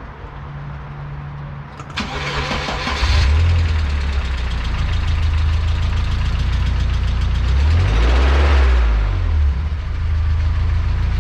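GAZelle 3302's ZMZ-405 four-cylinder petrol engine cranked by the starter about two seconds in, catching a second later and running with a fast clatter from the hydraulic lifters, heard while the oil pressure warning light is still on just after start. Engine speed briefly rises and falls near the end.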